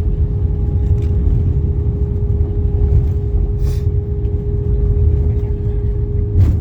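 Airbus A320-200 cabin noise: a steady, loud low rumble of the engines and airflow under a constant hum, with a couple of faint clicks, around the time of landing.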